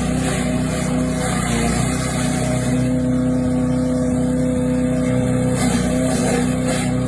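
The small 7 hp engine of a mini wood chipper-shredder runs steadily at constant speed. Its note wavers briefly about six seconds in.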